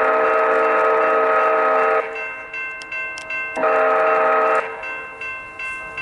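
Amtrak train horn sounding for the grade crossing: a long blast that ends about two seconds in, then a short blast a second and a half later. In the gaps the crossing's General Signal Type 2 electronic bell dings at an even beat.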